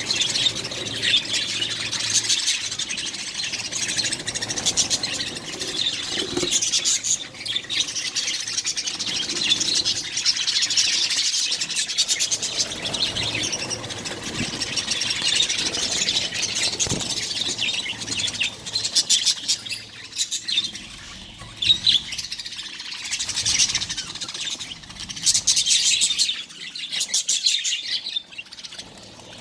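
Budgerigars chirping and chattering continuously in high-pitched, overlapping calls, with louder flurries now and then.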